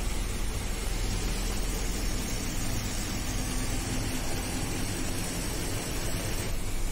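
Steady low engine rumble with a broad hiss of tyres on a wet road, heard from inside a moving vehicle's cabin.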